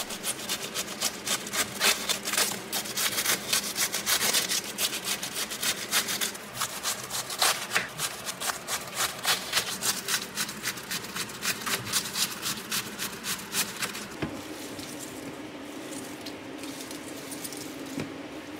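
Knife slicing through a head of raw green cabbage on a cutting board in a quick run of crisp cutting strokes. The cutting stops about fourteen seconds in, leaving a quieter, steady sound.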